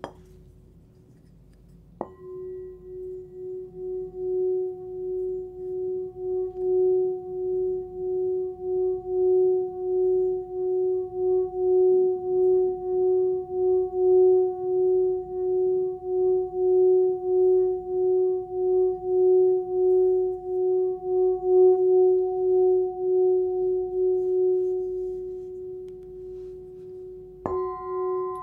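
A 13.5 cm forged singing bowl is struck with its leather-wrapped stick about two seconds in, then rubbed around the rim so it sings a steady tone near F# (about 367 Hz) with a fainter higher overtone, its loudness pulsing about once a second. Near the end it is struck again and rings with several overtones.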